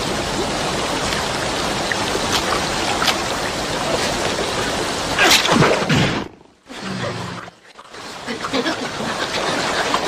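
Rushing river water, a steady noise, with a louder sudden sound about five seconds in and two brief drop-outs in the sound just after it.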